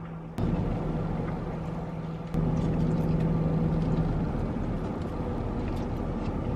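A car's engine idling, a low steady rumble with a low hum, heard from inside the car's cabin. The hum fades out about four seconds in.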